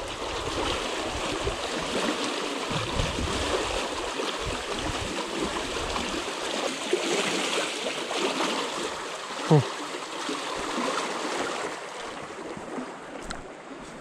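Steady rush of a fast, high river. Low gusts of wind buffet the microphone through roughly the first half, and there is one brief, loud falling sweep about nine and a half seconds in.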